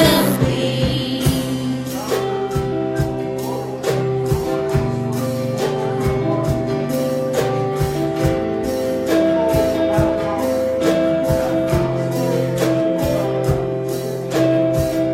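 Live church worship music: a praise band plays held keyboard chords over a steady drum beat, with singing in the mix.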